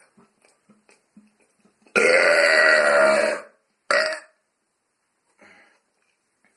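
A loud, deliberate burp lasting about a second and a half, with a shorter burp right after it. It is an air burp, made by drawing air into the stomach rather than by drinking anything fizzy. Faint small clicks come before it.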